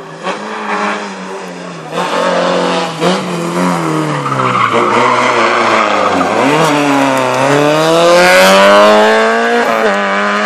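Rally car engine dropping in pitch as it slows into a hairpin, with tyres squealing through the slide, then revving up steadily as it accelerates hard out of the bend, with a brief dip near the end for a gear change.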